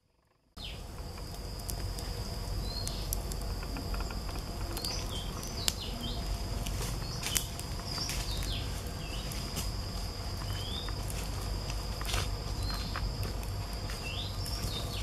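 Stick campfire burning with scattered sharp crackles and pops, over a steady high insect drone and short bird chirps, cutting in abruptly about half a second in.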